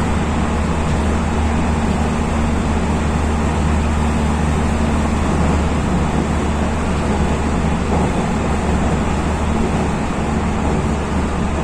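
Running noise of a JR West 207 series electric commuter train cruising at speed: a steady rumble of wheels on rail with a constant low drone.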